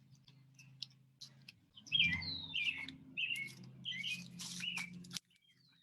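A songbird singing a run of short whistled phrases, each sliding down in pitch, from about two seconds in until shortly before the end, over a low steady hum.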